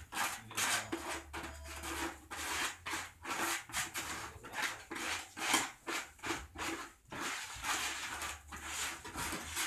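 Hands rubbing and smoothing wet plaster over a large plaster dome mould: quick, uneven swishing strokes, about three a second.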